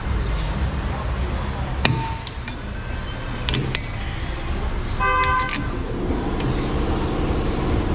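Sharp metallic clinks of a steel chuck key and tools against a brake lathe's three-jaw chuck as the jaws are set to barely touch the shaft, over a steady low shop hum. About five seconds in there is a short, pitched, horn-like tone, and a steady buzzy rumble starts soon after.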